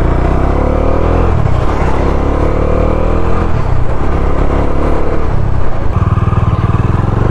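Motorcycle engine under way, its pitch rising three times as it accelerates, over a steady low rumble. It is picked up by an ordinary wired mic on a helmet-mounted GoPro Hero 8.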